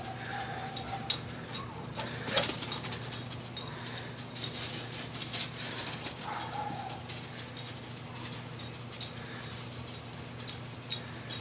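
Dog whining briefly twice, once at the start and again about six seconds in, with scattered sharp clicks and high ticks and a faint steady low hum underneath.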